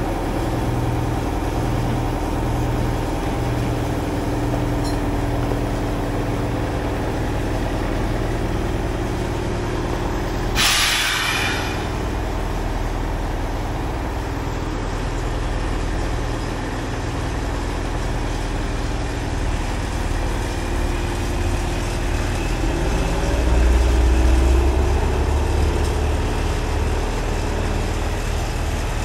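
Diesel engine of a crane running steadily while it lifts a Jerr-Dan wrecker body off a truck chassis, revving up about 23 seconds in. A hiss of air about a second long, about ten seconds in.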